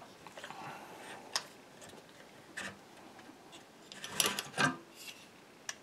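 Light handling clicks and rubbing of an AR-15 lower receiver being shifted in a plastic magazine-well vise block: a few scattered taps, with a small cluster about four seconds in.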